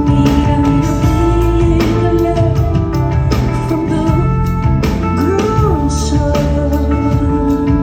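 Live band music with steady drum strokes, a bass line and long held melodic notes that glide in pitch now and then.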